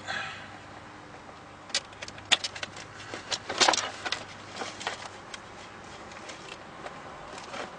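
Scattered clicks and knocks of the plastic center console being lifted out and its wiring connectors unplugged, the loudest cluster about three and a half seconds in.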